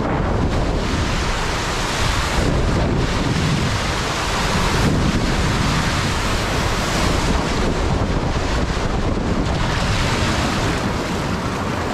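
Rushing water under a raft sliding through a ProSlide Tornado 60 funnel water slide, with heavy wind noise on the microphone. Water sprays loudly as the raft runs out into the pool near the end.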